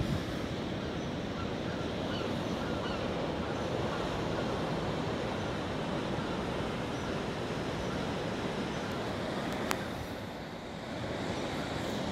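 Sea surf washing and breaking over a rocky shore in a steady, continuous rush, mixed with wind. One brief sharp click near the end.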